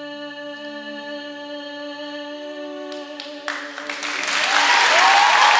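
A song's final chord is held steady for about three and a half seconds and ends. An audience then breaks into applause that quickly grows loud.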